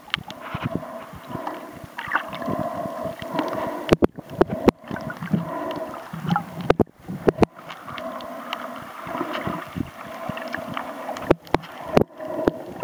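Water noise picked up by a camera held underwater while snorkeling: uneven gurgling and swishing, broken by pairs of sharp clicks about four, seven and eleven seconds in.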